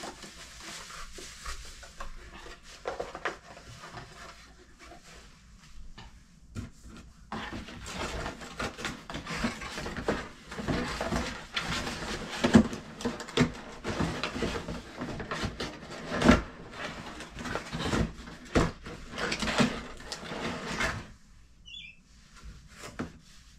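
Plastic packing wrap crinkling and rustling as it is handled and pulled out of a cardboard box. Light handling noises at first, then a long spell of dense crinkling that stops shortly before the end.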